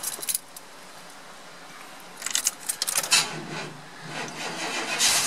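Keys rattling at the ignition of a 1993 Chevy C1500 pickup, then its 350 TBI V8 cranking and catching near the end. The battery is run down and is getting help to start the engine.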